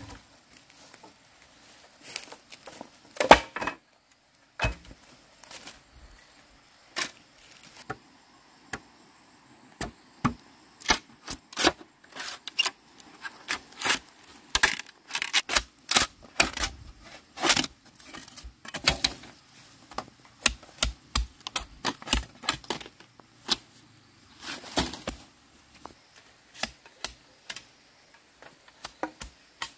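Bamboo poles and hand tools knocking and clicking as a bamboo fence is put up: a string of irregular sharp taps and knocks, coming thickest through the middle.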